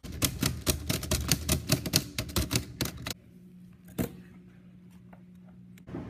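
Vintage manual typewriter being typed on rapidly, its keys striking several times a second for about three seconds and then stopping. A low steady hum follows, with one knock about four seconds in.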